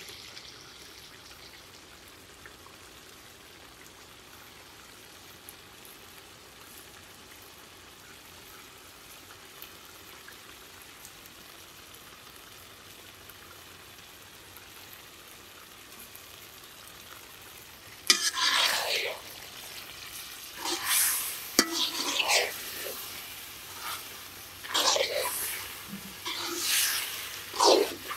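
Onion-tomato masala sizzling faintly in an iron kadai. About eighteen seconds in, a spatula starts stirring and scraping through it in repeated strokes, with louder sizzling.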